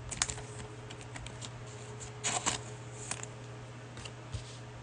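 Trading cards being handled and flipped through by hand, with soft rustles and light clicks of the cards sliding against each other, strongest twice near the middle.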